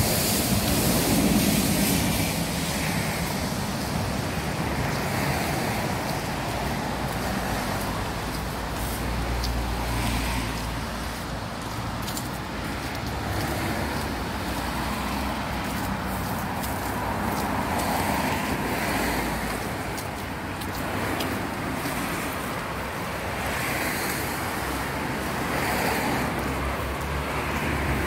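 Steady street traffic noise, swelling and fading as cars pass, with a low rumble that rises twice.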